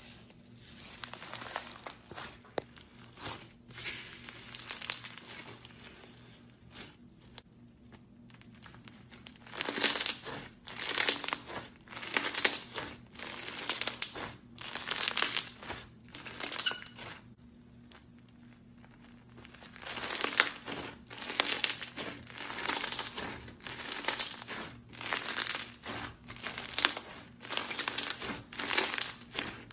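Hands squeezing and kneading slime filled with foam beads, crackling and crinkling in repeated bursts about once a second. The first part is softer, and there are short lulls in between.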